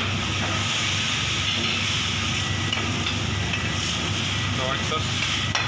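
Cream white sauce bubbling and hissing in a steel pan over the heat while a steel ladle stirs it, with a steady low hum underneath.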